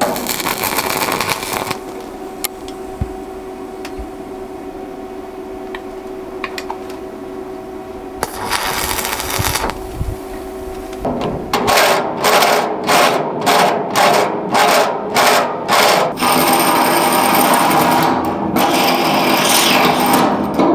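Power tools working steel plate on a steel hull: a drill motor hums steadily while a hole saw cuts through the bow plating, with louder stretches of cutting noise. About two-thirds of the way in come about ten short, even bursts, two a second, which run into a steady loud rush of noise.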